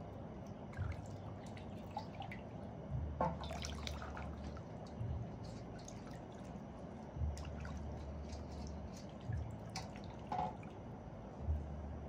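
Water dripping and splashing in an aluminium basin as hands wash and handle a plucked whole chicken, with scattered small splashes and a few low bumps.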